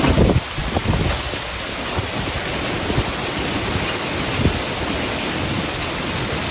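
Heavy storm downpour beating down in a dense, steady hiss, with low wind buffeting on the microphone that is strongest at the start.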